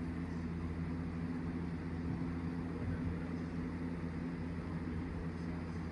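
Steady low hum over a constant hiss of background noise, with no distinct events.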